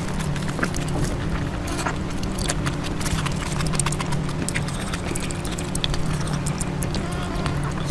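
Close-miked eating: irregular wet mouth clicks and smacks of chewing food, over a steady low hum.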